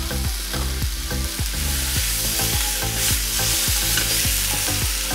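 Mushrooms and capsicum frying in ghee in a pan, sizzling steadily while a spatula stirs them with frequent light knocks and scrapes.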